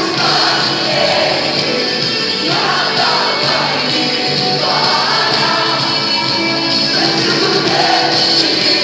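A live Christian rock worship band playing loudly, with voices singing and a crowd audible under the music.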